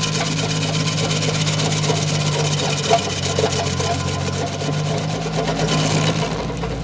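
Bobcat CT2025 compact tractor's diesel engine running steadily with the Woodland Mills PTO stump grinder spinning, a fast, even whir over the engine note and a couple of small knocks about three seconds in. Near the end the high whir drops away while the engine carries on.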